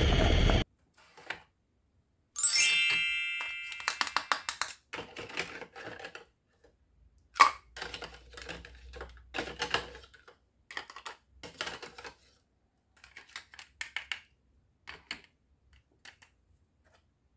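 Hard plastic toy food, a plastic slotted ladle and a plastic bowl clicking and clacking against each other in many short, irregular taps. A steady noise cuts off just after the start, and a short bright chime rings and fades about two seconds in, the loudest sound here.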